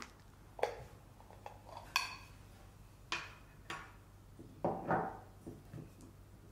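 A spoon scraping and knocking against a stainless steel mixing bowl as soft herb butter is stirred, in a handful of separate strokes. One knock about two seconds in sets the bowl ringing briefly, and a longer scrape comes near the end.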